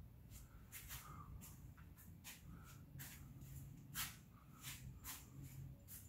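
Faint scattered clicks and rustles, about one or two a second and the loudest about four seconds in, over a low steady room hum: handling and movement noise from someone walking about with the camera.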